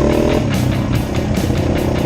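Rock music with a steady driving beat, over an engine running and revving.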